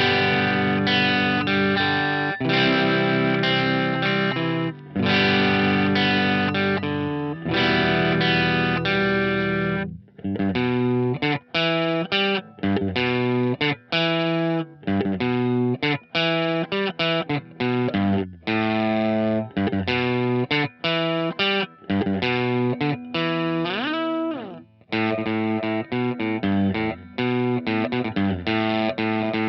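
Electric guitar played through a JHS Colour Box preamp into a Marshall JTM45 amp simulator, with a crunchy overdriven tone. It opens with held strummed chords, moves into single-note licks with a string bend, and ends on short, choppy rhythm chords.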